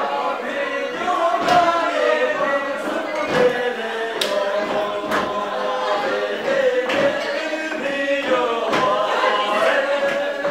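A group of voices singing together in a sustained, chant-like song. A low thump comes roughly every two seconds.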